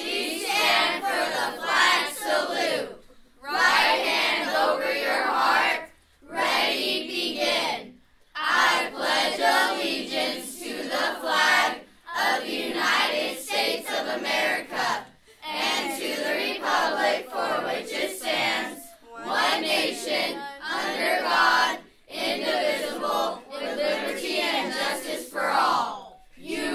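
A group of voices reciting the Pledge of Allegiance in unison, phrase by phrase with short pauses between the phrases.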